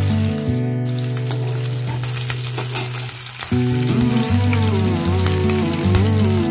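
Hot oil sizzling in a pan as boiled eggs fry, then as sliced onions and green chillies fry after a change about three and a half seconds in. Background music plays throughout.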